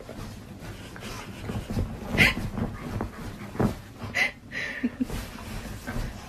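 A dog whining and whimpering in short bursts, loudest a couple of seconds in and again around four seconds in, while rolling and rubbing its face in bedsheets with steady rustling of the fabric.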